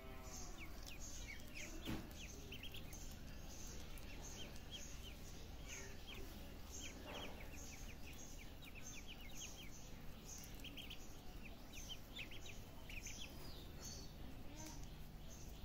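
A group of ducklings peeping: many short, high chirps in quick, overlapping runs, with a single soft knock about two seconds in.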